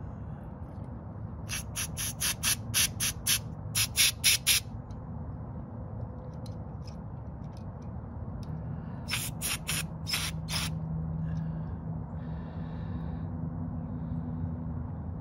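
Aerosol carb cleaner sprayed in short, rapid spurts into the passages of a leaf blower carburetor to clean them. There are two runs of quick hissing puffs, the first about one and a half seconds in and the second around nine seconds in, over a steady low hum.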